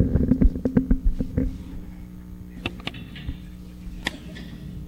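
Handling noise from a handheld microphone being set into its stand: a quick run of knocks and clicks in the first second and a half, then a few scattered clicks, over a steady electrical hum in the sound system.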